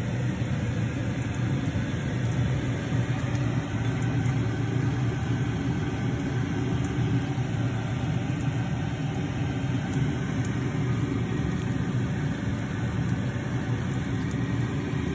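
A fan running: a steady low hum with an even hiss above it, unchanging throughout.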